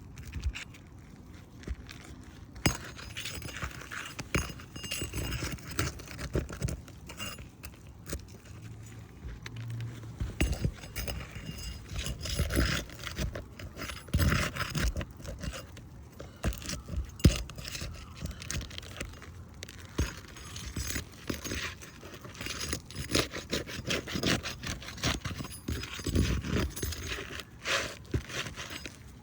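Metal roofing tools prying at 3-tab asphalt shingles: irregular scraping, cracking and clinking as the sealed shingle tabs are worked loose.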